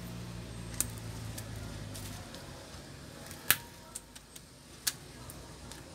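Rubber bands being stretched around a smartphone and snapping against its body, clamping a freshly glued replacement screen: a few sharp snaps, the loudest about three and a half seconds in.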